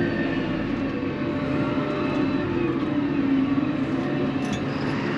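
Tractor engine running steadily under way, its pitch sagging slightly about three seconds in.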